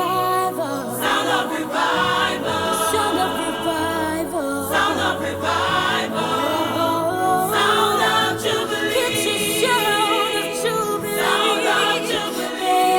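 Gospel choir singing, voices holding and moving between sustained notes with no clear words.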